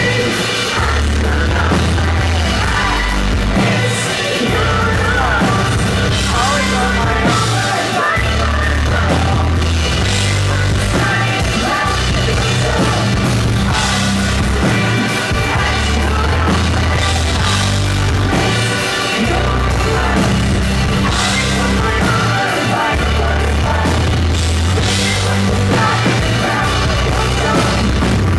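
Pop-rock band playing live and loud: drums, electric guitar and heavy pulsing bass through a venue PA, with a woman's vocals in places.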